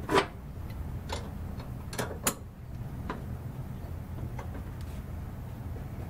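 A handful of sharp, irregularly spaced metallic clicks and taps from hand tools and hardware being handled while a jam nut is fitted on the reverse-cable compression bolt. The loudest comes right at the start. A steady low hum sits underneath.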